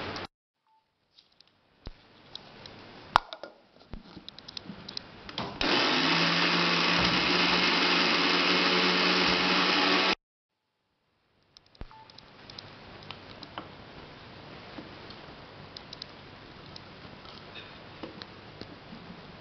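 Electric mixer grinder running steadily for about four and a half seconds, grinding a coconut-and-spice masala to a wet paste in its steel jar, then stopping abruptly. Before it starts there are clattering clicks of the jar and lid being handled, and after it stops there are quieter handling clicks.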